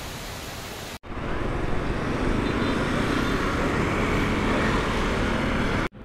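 A waterfall's steady rush for about a second, then a sudden cut to louder steady road-traffic noise.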